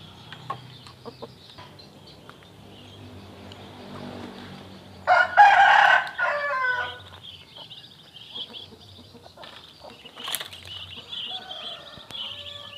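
Rooster crowing once, about five seconds in: a loud crow of about two seconds that ends in a falling tail.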